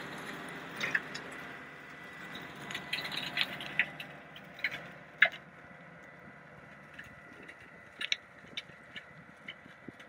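Tractor-driven Griffith Jungle Buster chain slasher running while cutting gorse and rushes: a steady machine drone with many sharp clicks and rattles through it. The drone drops off about four seconds in, and the sharpest click comes just after five seconds.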